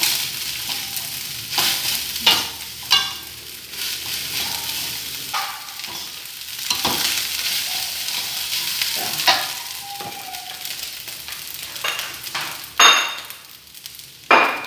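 Turmeric fried rice sizzling in a metal wok while a metal spatula stirs and scrapes it, with sharp clanks of the spatula against the wok at intervals, the loudest near the end.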